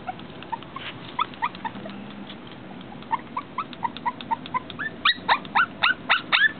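Shih Tzu puppy whining in a string of short, high, falling cries, a few a second, that grow much louder about five seconds in: the puppy is upset and fussing.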